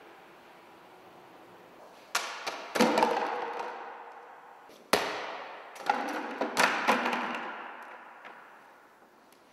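A plastic bucket and ball knocking and clattering on a concrete floor, with the bucket tipping over, in two clusters of sharp knocks, the first about two seconds in and the second about five seconds in. Each cluster rings out slowly in a bare, echoing room.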